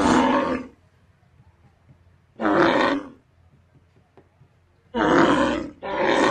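Dinosaur roar sound effect: short roars, each under a second, four times, the last two close together near the end.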